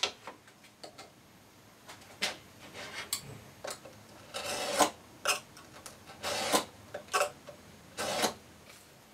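Steel marking knife drawn along a square, scoring a line across the grain of a hardwood board in a series of short scraping strokes, a couple of them longer.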